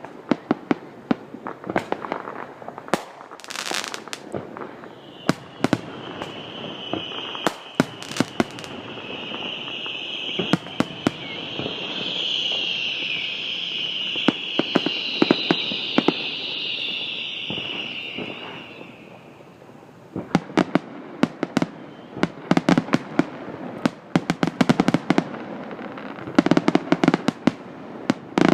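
Aerial fireworks bursting in a rapid run of sharp bangs. From about five seconds in, a high hiss swells up and fades out again near twenty seconds while the bangs thin out, and then a dense volley of bangs follows.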